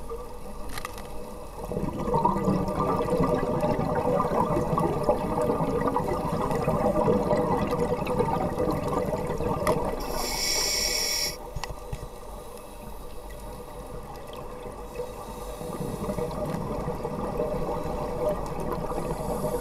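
Scuba divers' exhaled bubbles rushing and gurgling, muffled as heard underwater. The bubbling turns loud about two seconds in, drops away about eleven seconds in, and builds again toward the end, with a brief high hiss just before the drop.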